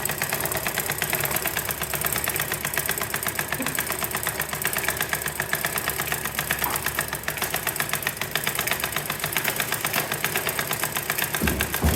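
Engine running steadily with a fast, even knocking beat, getting briefly deeper and louder near the end.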